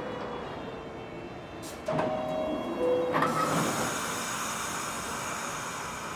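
New York City subway train: a two-note descending chime sounds about two seconds in, then the train starts moving with a rising motor whine over a steady rumble.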